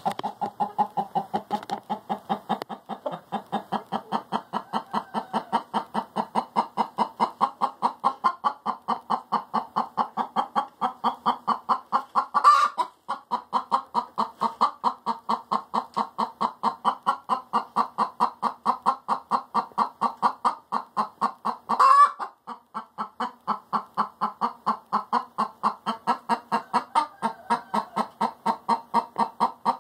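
A hen's egg song: rapid, evenly spaced clucks that go on without a break, twice rising into a louder squawk, about halfway through and again about two-thirds in.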